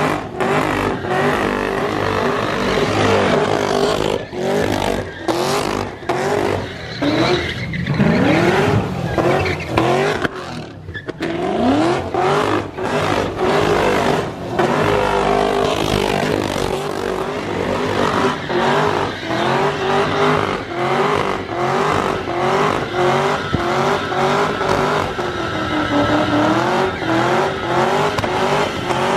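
Second-generation Cadillac CTS-V's supercharged V8 revving hard during donuts, with tyres squealing on the pavement. Through the second half the revs rise and drop in a quick repeating pattern.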